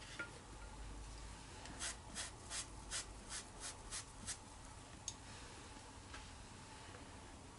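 Paintbrush stroking wet paint onto watercolour paper: a run of about nine short, quick strokes over a couple of seconds, then a single light click about five seconds in.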